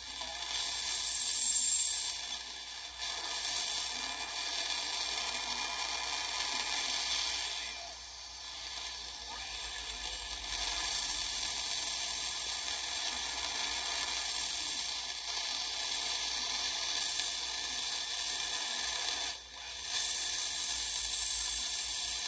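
Homebuilt 80-metre regenerative receiver built with 2N2222 transistors, heard through a speaker: steady band hiss and static with a high whistle that slides up and down in pitch as the knob is turned.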